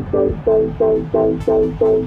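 Electronic dance music: a synth chord pulsing about three times a second over a steady bass, with hi-hats coming in near the end.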